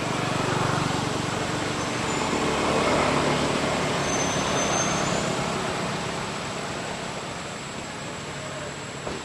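Motor vehicle passing nearby: a broad traffic rumble that swells to its loudest about three seconds in, then fades away.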